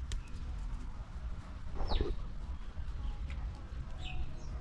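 A single short animal call sweeping down in pitch about two seconds in, with a brief high chirp near the end, over a steady low rumble.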